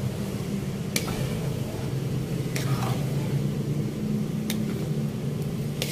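Metal ladle stirring thick, simmering coconut-milk pudding with rice balls in a wide metal pan. The ladle clicks sharply against the pan three times, over a steady low hum.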